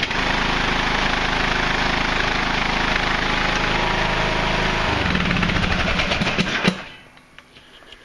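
Craftsman LT2000 lawn tractor engine running steadily just after a push-button start. Its note changes about five seconds in, and it shuts off suddenly a second or so later.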